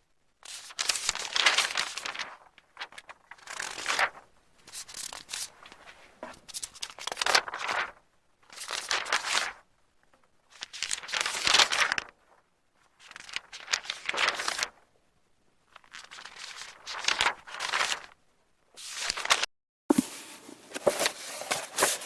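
Paper book pages being turned one after another: about nine dry rustles of a second or two each, separated by short pauses. A slightly different recording of a page turn begins near the end with a sharp start.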